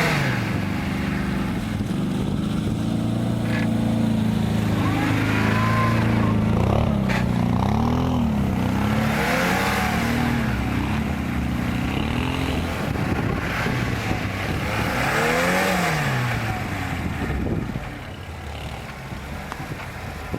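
Four-wheel-drive off-road vehicle's engine revving up and down over and over, with some noisy hiss in between; it eases off and gets quieter near the end.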